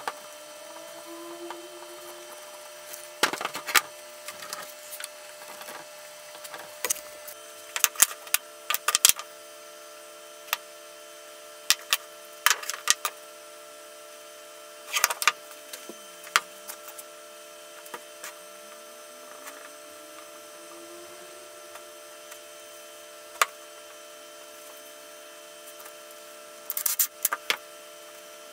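Scattered clicks and knocks of plywood parts and plastic quick-release bar clamps being handled and set down on a plywood workbench, with a faint steady hum underneath.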